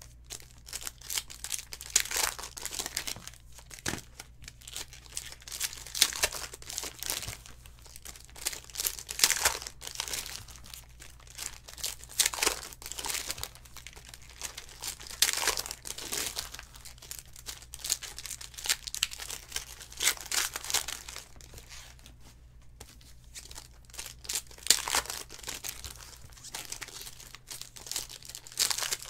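Foil wrappers of 2019 Donruss Optic trading-card packs crinkling and tearing as they are ripped open by hand, in a string of irregular crackles.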